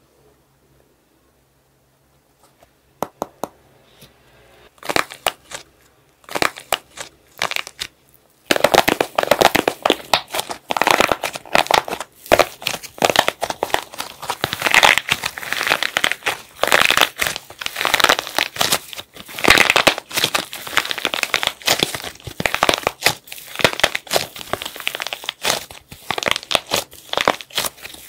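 Thin dried plaster shell over soft clay cracking and crunching as hands squeeze it. After a short hush come a few separate cracks, then dense crackling from about a third of the way in.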